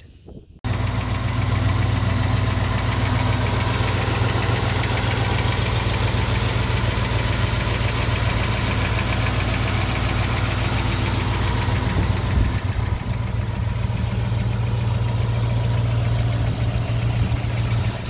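International V8 engine starting up and idling steadily with a fast, even valvetrain ticking, the sign of two soft hydraulic lifters that are not pumping up and holding pressure.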